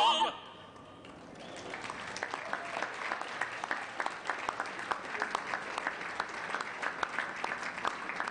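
The last held chord of a four-voice vocal group, sung with a wavering vibrato, cuts off just after the start. After a brief hush, a large crowd breaks into applause that builds over a second or two and then keeps going steadily.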